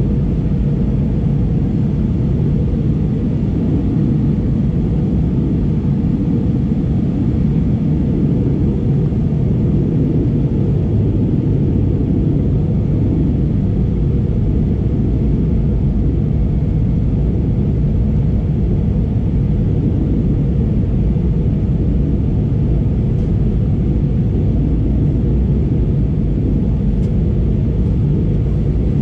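Steady low rumble of engine and airflow noise inside the cabin of an Airbus A320neo (PW1100G geared turbofans) in flight, heard from a window seat, with a few faint ticks near the end.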